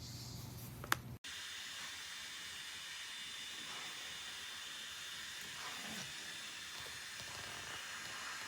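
A click, then a Conair hair dryer running with a steady hiss of rushing air and a faint high motor whine.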